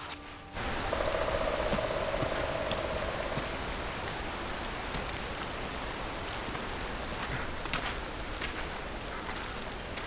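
Steady rain: an even hiss that comes in suddenly about half a second in, with a few faint scattered clicks later on.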